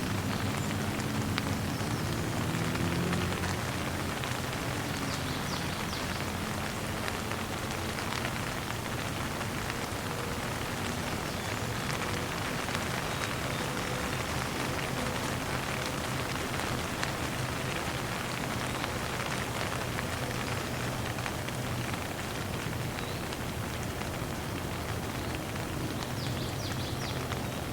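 Shower running, water spraying and splashing steadily with an even hiss.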